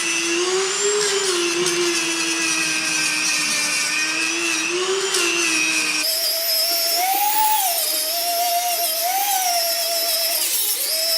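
Dremel 3000 rotary tool running with a steady high whine, its pitch sagging and recovering slightly as it sands primer on a wheel face. About halfway through the whine jumps to a much higher pitch.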